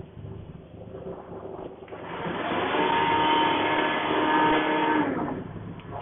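A motor whine that rises in pitch about two seconds in, holds steady, then falls away and stops near the end, over a constant low hum.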